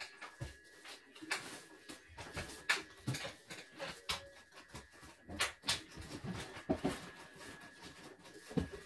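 Irregular light clicks, taps and knocks of hand tools and metal parts being handled while a CNY portable embroidery machine is taken apart for servicing. A faint steady high tone sits under them.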